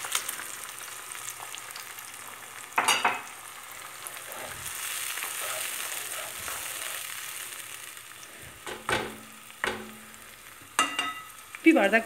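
Chopped onions and green lentils sizzling in olive oil in a frying pan while being stirred with a wooden spoon. The sizzle swells in the middle, and the spoon gives a few sharp knocks against the pan.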